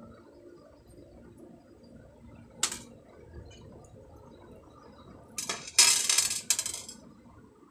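Small metal screws tipped out and rattling onto the bench top about five and a half seconds in, a dense clatter lasting about a second and a half. A single sharp click comes a few seconds earlier.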